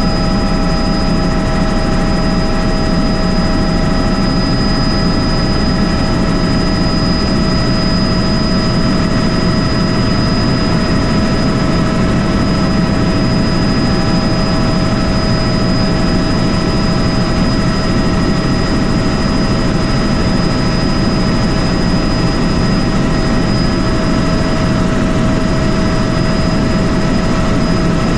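Helicopter in flight: steady, loud rotor and engine noise that does not change, with a constant high whine over it.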